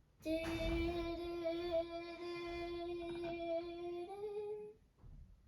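A girl's voice holding one long steady note for about four seconds, stepping up slightly in pitch just before it stops.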